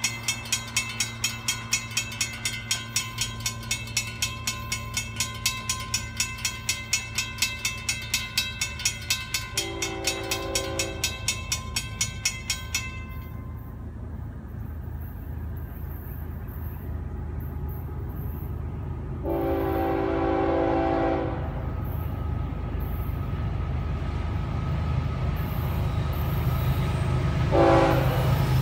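Grade-crossing warning bell ringing in rapid, even strokes, stopping about 13 seconds in. The approaching Florida East Coast freight's diesel locomotive sounds its air horn three times for the crossing: a blast about ten seconds in, a longer one about twenty seconds in, and a short one near the end, while the low rumble of its engines grows louder.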